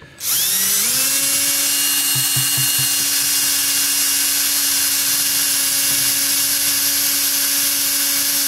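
Milwaukee cordless drill/driver backing out a bolt. The motor whines up to speed about a quarter second in, then runs at a steady pitch.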